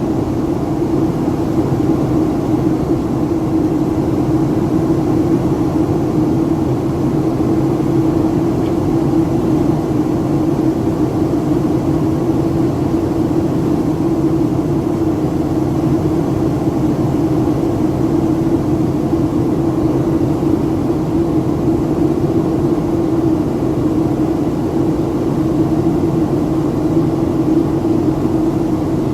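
Airliner cabin noise: the jet engines and airflow make a steady, unchanging drone with a constant low hum, heard from inside the passenger cabin above the clouds.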